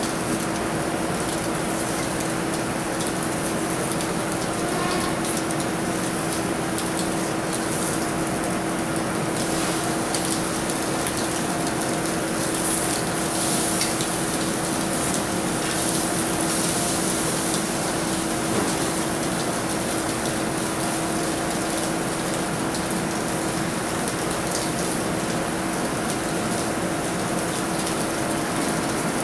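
Food sizzling on a hot grill: a steady crackling hiss, a little louder for a few seconds near the middle, with a constant hum underneath.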